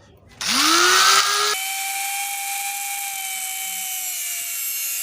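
Electric grinder switched on about half a second in, its whine rising as the motor spins up, then running steadily at a high pitch.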